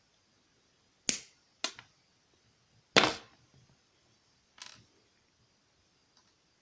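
Pliers snipping and working thick-gauge copper wire: four sharp snaps. The loudest, about three seconds in, is a pop with a short ring, which thick wire makes when it is cut through.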